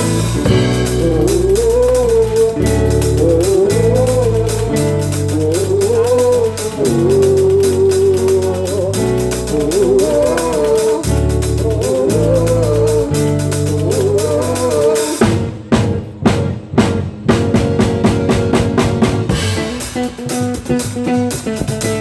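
Live pagode band music with a busy drum kit, a bass line and a melody line. About 15 s in the band drops back to a string of separate sharp drum hits, then fills back in near the end.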